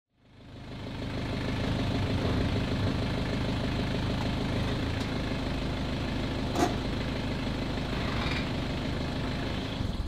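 BMW F30 3 Series engine idling steadily, fading in over the first second, with one sharp click about two-thirds of the way through.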